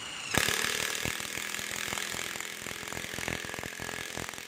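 Cordless screwdriver driving a screw into a hardwood block: the motor runs under load, and about a third of a second in a rapid, irregular clatter of the drive mechanism starts and carries on as the screw is driven home.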